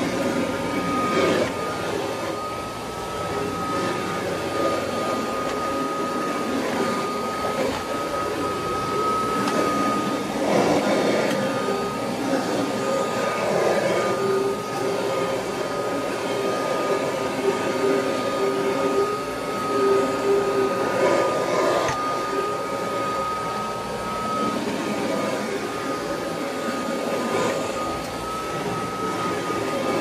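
Kirby Heritage II Legend upright vacuum cleaner running, with a steady high motor whine over the rush of suction as it is pushed across felt floor padding. A few brief louder swells come and go.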